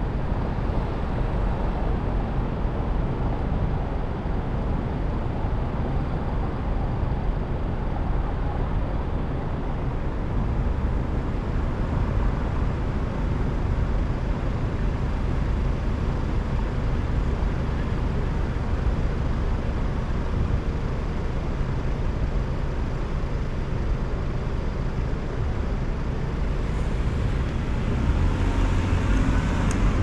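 Steady city traffic and road noise from a car driving on city streets, a low rumble of engine and tyres, growing a little louder near the end.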